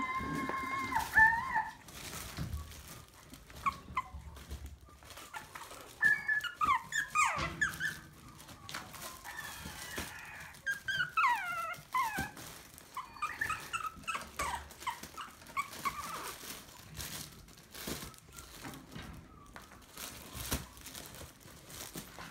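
Maltese puppies whining and yipping in short bouts of high, falling squeals while they play. Scattered light knocks and taps run between the bouts.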